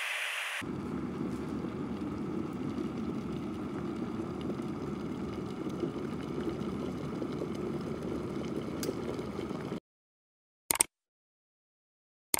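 Water at a rolling boil in a glass electric kettle. A high steamy hiss drops away about half a second in, leaving a steady low bubbling rumble that cuts off suddenly near the end. A single short blip follows.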